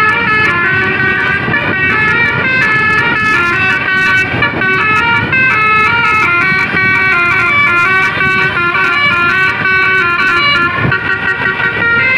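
Bus 'basuri' telolet melody horn playing a tune, several tones stepping up and down in pitch every fraction of a second, over the rumble of traffic.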